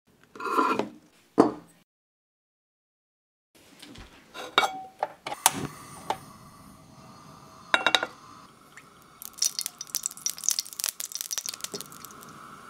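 Two short sounds, a moment of silence, then a portable gas stove clicks alight and its burner runs with a steady hiss. A pan clanks down on the grate, and a spoon clinks against it as garlic oil is poured in, with a run of small crackles and clinks.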